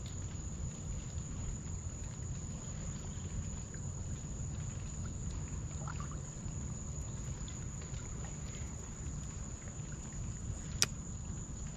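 Outdoor ambience: a steady low rumble with a constant high, thin insect drone over it, and one sharp click near the end.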